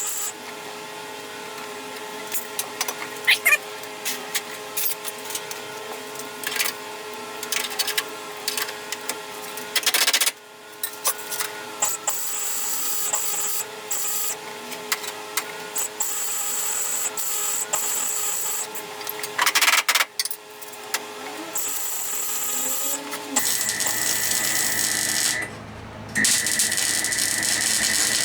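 Metalwork on a car body shell: intermittent crackling and clicking tool noise in on-and-off stretches, then a power tool running with a steady high whine for the last few seconds, briefly stopping and starting again.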